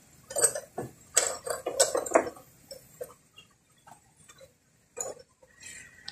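Irregular metallic clinks and knocks: a quick cluster in the first two and a half seconds, then a few scattered ones.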